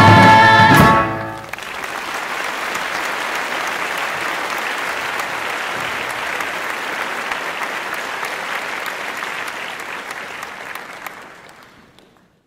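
The final held chord of a song with band and voices ends with a last hit about a second in. Audience applause follows and fades out near the end.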